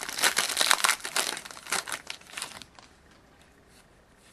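Trading-card pack wrapper crinkling and crackling as it is torn open by hand, stopping about two and a half seconds in.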